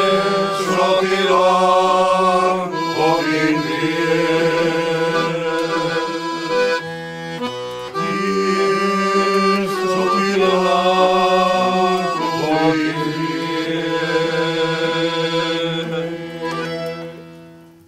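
Small group of older men singing a song together over sustained instrumental accompaniment, in long held phrases. The music fades out near the end.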